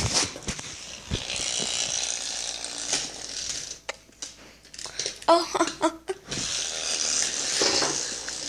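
Plastic spinning-top toy with gear-driven wheels whirring as it spins on a wooden table, a steady hiss-like whirr that starts after a click, breaks off about four seconds in and starts again near the end.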